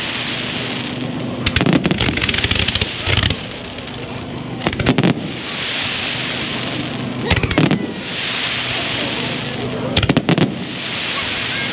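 Fireworks display: clusters of sharp bangs about every two and a half seconds, each followed by a swelling crackling hiss from the bursting shells.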